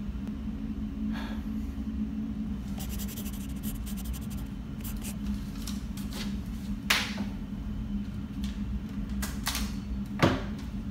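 Steady low machine hum of plant-room ventilation equipment, with scattered small clicks and taps from handling a pen and papers at a desk. The sharpest taps come about seven and ten seconds in.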